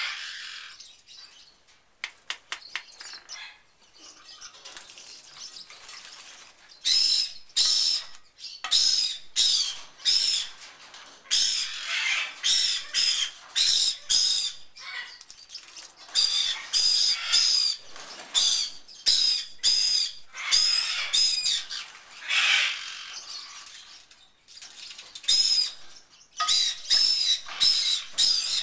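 Channel-billed toucan bathing in a shallow water bowl: runs of quick splashes as it dips and flaps its wings, several a second, with short high chirps mixed in. The first several seconds are quieter, with the splashing picking up about seven seconds in.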